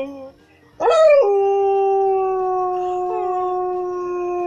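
Dog howling. One howl fades out, and after a short pause a new howl starts about a second in, rising quickly and then holding one long steady note.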